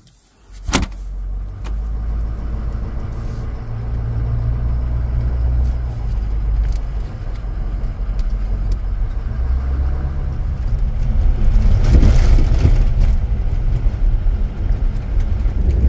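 Pickup truck's engine and road noise heard inside the cab while driving, a steady low rumble that starts abruptly about half a second in and grows louder around two-thirds of the way through.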